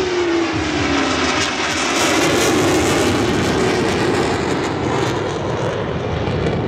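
Jet noise from a Boeing F-15SG Eagle's twin turbofan engines at high power during a display pass. A whine falls in pitch over the first second or so as the jet goes by, then gives way to a steady, broad roar with crackling from about one and a half to three seconds in.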